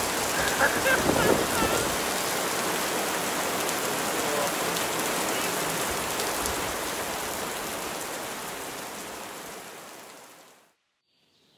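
Heavy rain falling steadily in a thunderstorm, a dense hiss that fades out near the end.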